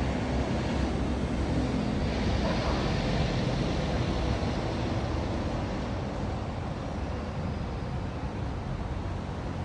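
Steady outdoor background noise: a low rumble with an even hiss over it, unchanging throughout.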